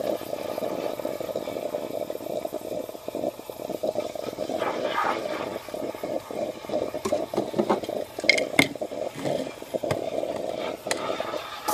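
Coffee maker brewing into its glass carafe, with a steady, irregular bubbling. A few sharp knocks come in the last few seconds.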